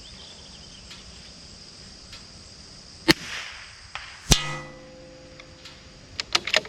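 A .22 LR bolt-action rifle shot about three seconds in, then a second sharp crack a second later that rings briefly with a metallic tone. A few light clicks follow near the end.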